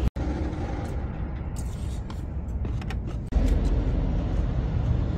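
Steady low outdoor rumble, with a few light clicks and scrapes of a metal spoon against a ceramic bowl of fried rice.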